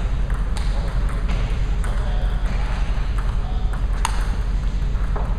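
Celluloid or plastic table tennis ball clicking off paddles and the table in a rally: a handful of sharp, irregularly spaced clicks, the loudest about four seconds in, over a steady low rumble.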